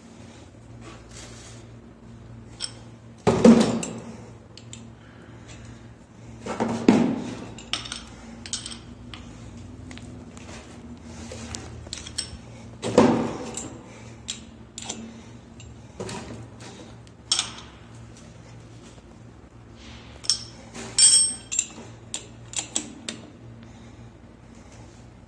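Steel open-end spanner clinking and scraping on brass wall fittings while a bathroom wall mixer is fitted, with three louder knocks spread through and a quick run of clinks near the end.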